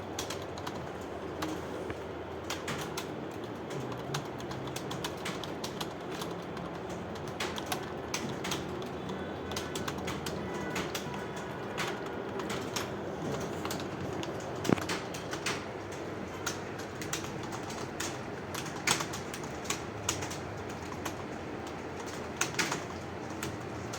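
Many computer keyboards being typed on at once: a dense, continuous clatter of keystrokes from several typists, with a few louder key strikes standing out.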